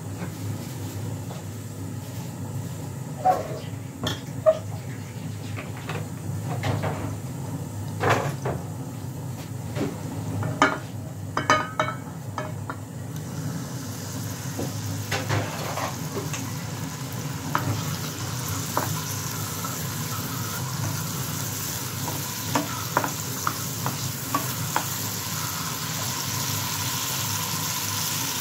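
Chopped tomatoes and green chillies going into a hot aluminium frying pan, with a series of light knocks and clicks in the first half. Then sizzling that builds steadily through the second half as they start to fry, over a steady low hum.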